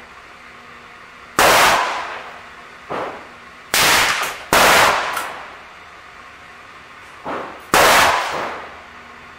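Ruger Blackhawk single-action revolver firing .45 ACP handloads with Lee 252-grain semi-wadcutter cast bullets: four loud shots, two of them close together midway, each ringing off for about a second. Fainter shots come in between.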